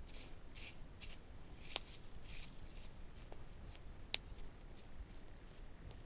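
Campfire of dry brushwood and grass crackling irregularly, with two sharper pops, one just under two seconds in and one about four seconds in.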